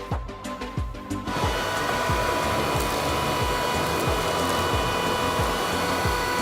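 Cordless vacuum cleaner switched on about a second in: its motor runs with a steady whooshing hiss and a high whine. Background music with a steady beat plays throughout.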